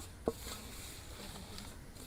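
Hands mixing a wet spice masala into fish pieces: faint soft squishing, with one sharp click about a third of a second in.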